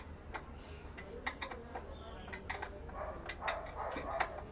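Irregular sharp clicks and taps of tools and metal parts during hand work on a motorcycle, fitting and wiring a horn.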